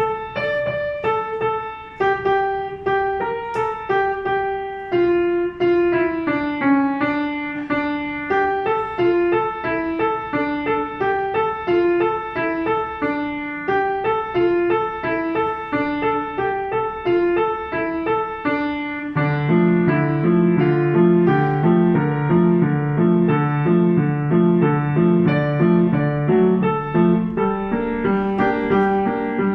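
An upright piano playing a Chinese New Year song: a clear melody of single notes. About two-thirds of the way through, a fuller, louder accompaniment of repeated low notes comes in beneath the tune.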